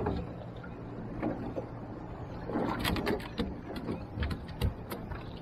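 Scattered knocks and clatter in an aluminium skiff as the crew move gear and handle the nets, thickest in the second half, over a low rumble.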